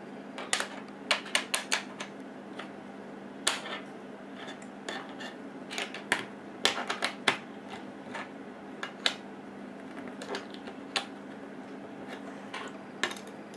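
Plastic Lego bricks clicking and tapping as they are handled and pressed together on a tabletop: irregular sharp clicks, some in quick runs.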